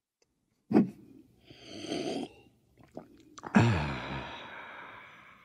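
A cartoon man's breathing and sighing over a mug of tea: a short breathy hiss, then a long, contented 'ahh' sigh that falls in pitch and trails off into breath.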